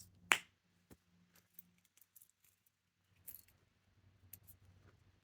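Small fidget toys being handled: a few light clicks and taps, the sharpest about a third of a second in.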